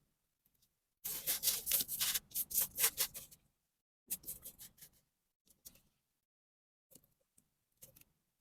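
Kinetic sand being squished and crumbling: a dense run of soft crackles about a second in that lasts some two seconds, a shorter run around four seconds, then a few scattered ticks.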